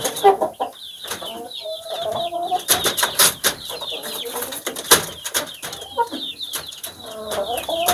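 A young ayam ekor lidi hen giving a drawn-out low call twice, with short clucks between, while small birds chirp high and steadily in the background. A few sharp knocks come about three and five seconds in.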